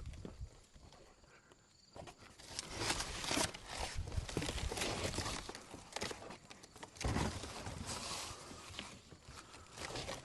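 Footsteps and irregular scuffing, rustling and knocking handling noises; the first two seconds are quiet.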